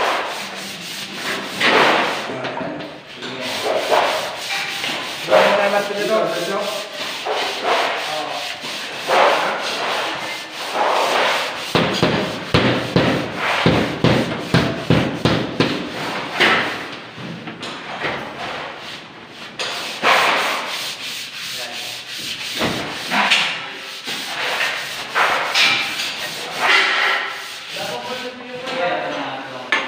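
Rough rubbing strokes against board, fast and repeated, coming in spells with short pauses and quickest in the middle stretch.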